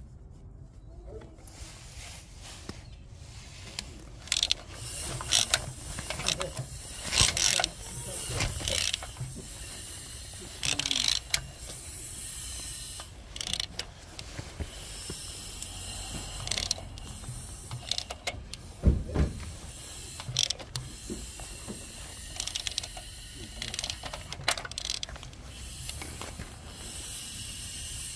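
Hand socket ratchet clicking in short, irregular bursts while a fastener on the gear in a Harley-Davidson Sportster's cam chest is turned.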